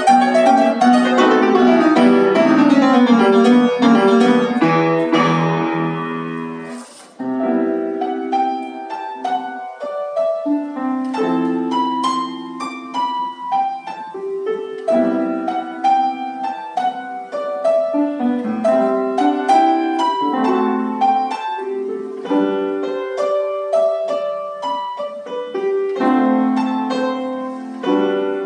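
Solo piano music: a fast, dense flurry of notes that dies away about seven seconds in, followed by a slower melody of separate notes and chords.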